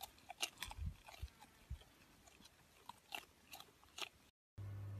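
A pet chewing and crunching on something hard, with irregular crisp bites, several close together in the first second and a few more around three to four seconds in. It cuts off suddenly near the end and gives way to a steady low hum.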